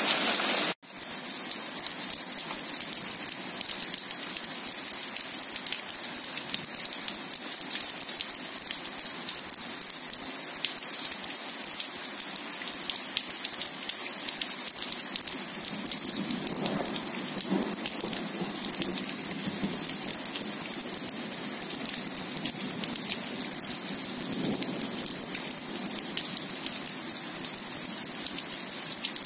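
Rain falling steadily on a wet asphalt road and grass, a dense hiss of drops; the sound cuts out for an instant about a second in.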